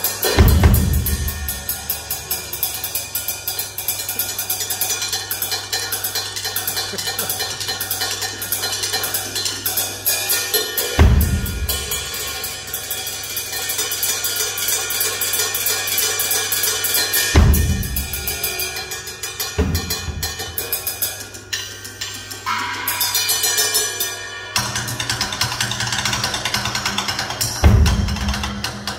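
Solo on a Ludwig drum kit: fast, continuous rolls and fills across snare and toms, broken by heavy low accents on the bass drums about five times.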